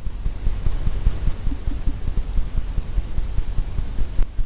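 Paint brush loaded with oil paint tapping and dabbing against a stretched canvas, a quick irregular run of soft low thumps several times a second.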